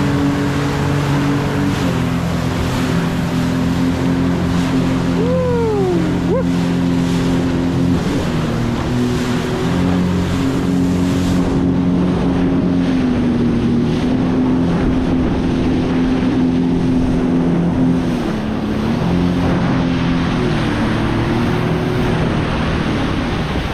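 Jet ski engine running steadily at speed, its pitch dipping and rising slightly a few times, over the rush of water spray off the hull and wind on the microphone.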